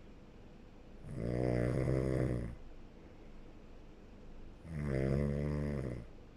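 A sleeping person snoring steadily: two long, pitched snores on the in-breaths, about three and a half seconds apart, with quiet breathing between.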